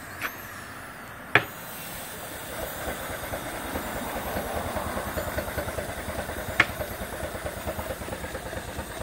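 Small vertical compound steam engine (3-inch high-pressure and 5-inch low-pressure cylinders) running smoothly at about a quarter throttle on 80–90 psi steam, with a rapid, even beat and steam hiss, and louder from about two seconds in. A sharp click comes about a second and a half in and another near seven seconds.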